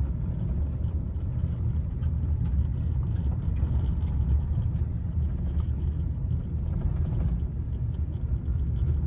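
Steady low rumble of a car's engine and tyres, heard from inside the cabin while driving over a rough dirt and gravel road.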